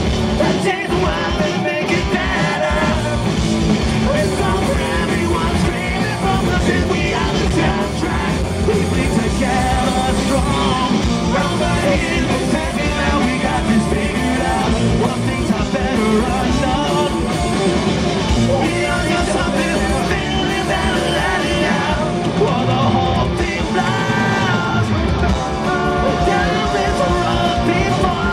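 Punk rock band playing live over a stage PA, heard from the audience: a singer sings and yells over electric guitars, bass and drums, loud and without a break.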